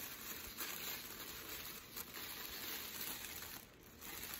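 Paper wrapping rustling as a small package is unwrapped by hand, with small irregular crackles, easing off near the end.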